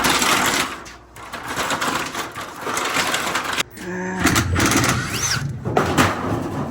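Sheet-metal duct trunk being torn down and pulled loose: loud, continuous rattling, banging and scraping of metal, with a brief high screech about five seconds in.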